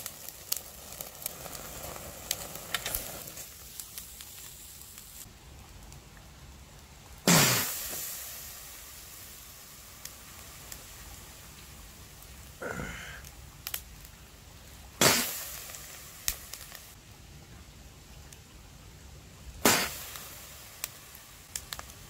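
Charcoal fire crackling and sizzling under mackerel on a grill, with three sudden loud bursts of hiss that each die away over about a second.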